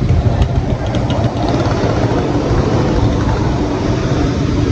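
A steady low rumble, with a few light clicks in the first second and a half.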